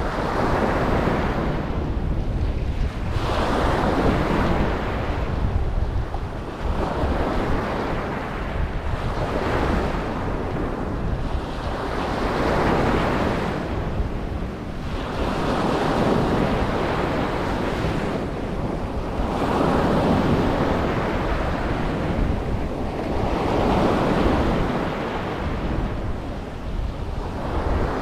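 Ocean surf breaking and washing onto a beach, a fresh swell of wave noise rising and falling about every three to four seconds, over a steady low rumble of wind on the microphone.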